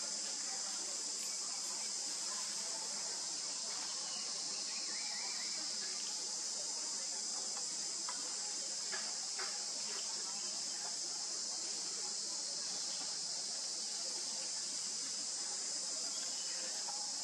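Steady, high-pitched insect chorus droning without a break, with a couple of faint clicks about nine seconds in.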